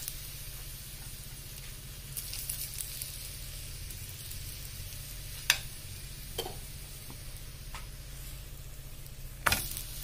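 Oiled spinach paratha frying on a hot iron tawa: a soft, steady sizzle with light crackling. A few sharp clicks cut through it, the loudest near the end.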